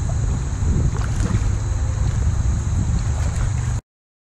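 Wind rumbling on the microphone over water sloshing and lapping around legs wading in a shallow river, with a steady high hiss and a few faint splashes. It cuts off abruptly near the end.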